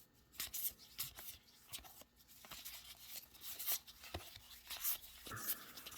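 Trading cards being handled and flipped through by hand: quiet, irregular soft clicks and rustles of card stock, with a brief sliding rub about five seconds in.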